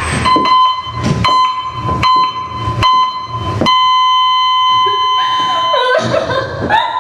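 Heart-monitor sound effect beeping about once every 0.8 seconds, then going into a long flat tone for about two seconds before cutting off: the patient's heart has stopped on the operating table.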